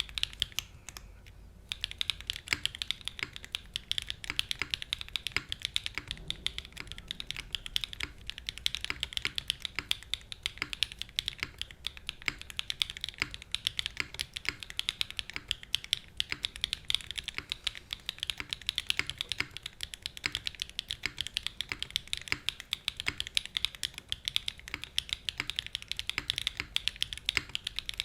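Continuous rapid typing on a SEBAS Prototype mechanical keyboard with stock BSUN TaiChi linear switches, an aluminium plate, no foam and GMK keycaps. The keystrokes stop briefly about a second in.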